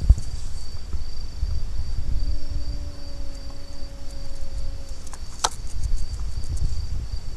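A singing insect trilling steadily at a high pitch, over low rumbling. A low steady hum comes in about two seconds in and stops about five seconds in, and a single sharp click sounds shortly after.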